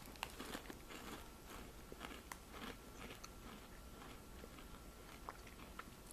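Faint crunching of a person chewing ripple-cut potato chips: many small, irregular crunches.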